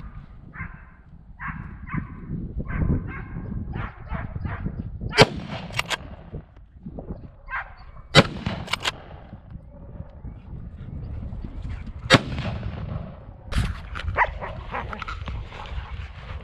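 Hunting rifle shots, several of them sharp and some in quick pairs, through the middle, with a pack of hounds barking in short bursts at the start and again near the end. A low rumble of wind on the microphone runs underneath.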